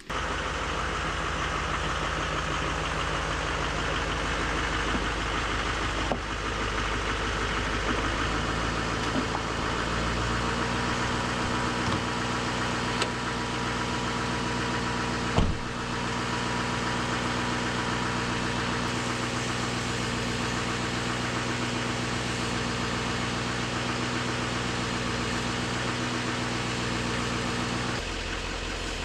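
GMC 3500 pickup's engine idling steadily, with one thud about halfway through that fits the truck's door shutting.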